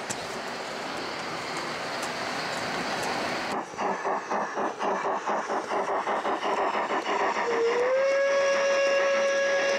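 Gauge 1 model steam locomotive chuffing in a steady beat of about three to four puffs a second, then sounding a long, steady whistle from about seven and a half seconds in. Before the chuffing there is a steady rushing noise.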